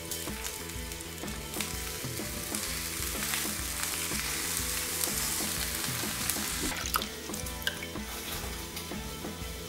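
Zucchini and red pepper slices sizzling in hot oil as they are laid into a frying pan, the sizzle strongest in the middle and fading after about seven seconds, over background music.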